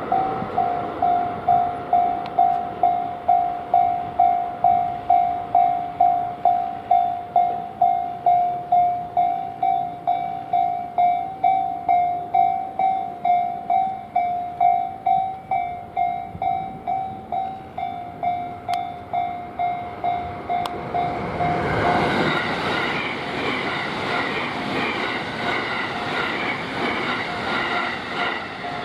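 Japanese level-crossing alarm ringing its electronic "kan-kan" tone about twice a second. A little over twenty seconds in the tone stops and a train passes through the crossing, a loud rumble with wheels clattering over the rails.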